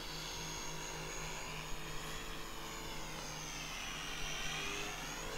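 Small RC P-51 model plane's motor and propeller whining overhead, faint, the pitch dipping down through the middle and climbing again near the end.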